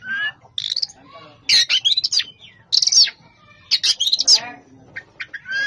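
Oriental magpie-robin singing a dense song: short, varied high phrases following one another with only brief gaps.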